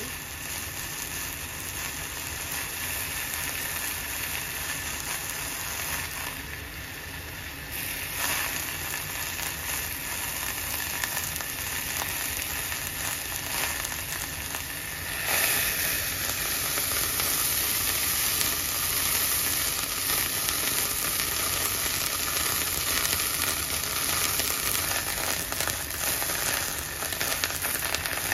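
Hamburger patty sizzling as it fries in a cast-iron skillet under a cast-iron burger press: a steady crackling hiss that gets louder about halfway through.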